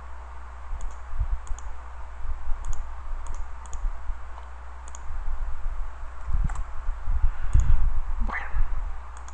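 Computer mouse clicking about a dozen times at uneven intervals, over a steady low hum, with dull low thumps that are loudest about six to eight seconds in.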